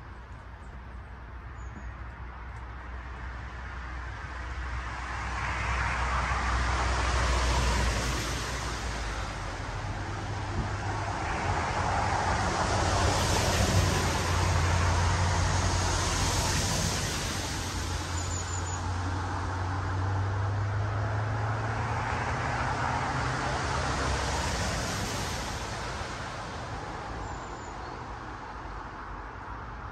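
Road traffic passing: a steady low rumble under a hiss, swelling and fading as several vehicles go by.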